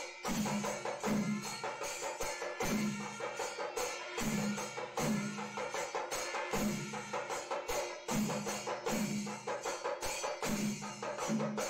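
Percussive music with a steady repeating beat: quick knocking strokes over a low tone that comes back about every second and a quarter.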